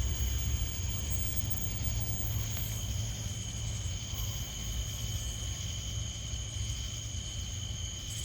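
Crickets chirring in a steady high drone, two constant pitches, over a low rumble that eases off a little.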